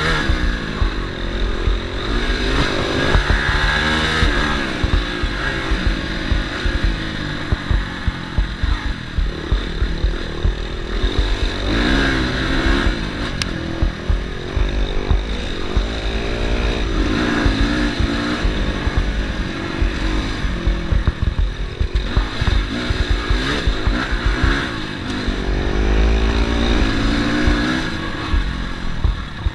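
Dirt bike engine pulling hard and easing off, over and over, its pitch climbing and dropping every few seconds as it runs through the revs. Heavy wind rumble from riding at speed sits on the microphone.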